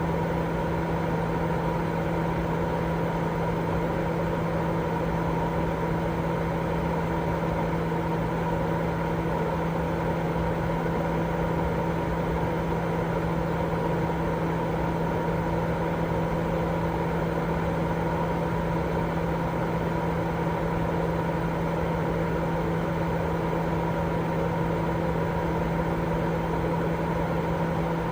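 Continuous sleep-aid noise: a steady, even rush weighted toward the low end, with a constant low hum running through it and no change in level.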